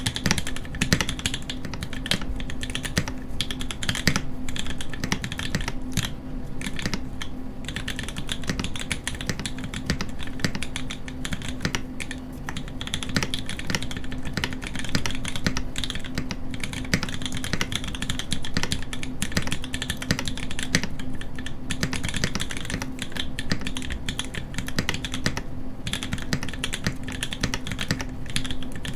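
Typing on a Hand Engineering Haus mechanical keyboard with lubed Pewter switches on an FR4 plate, no case foam and GMK keycaps. The keystrokes come rapidly and continuously, with a few brief let-ups, over a steady low hum.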